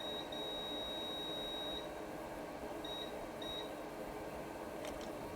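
Multimeter continuity beeper sounding as the probes touch a line on a phone logic board. It gives one high beep lasting about a second and a half, then two short beeps, each showing that the probed line reads as shorted.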